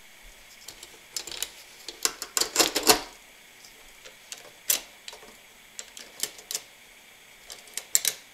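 Sharp metal clicks and clinks from a DynaGlo RMC55-R7 kerosene heater's wick carrier and ratchet wick-adjustment gear being seated and worked by hand: a quick cluster about two to three seconds in, then scattered single clicks.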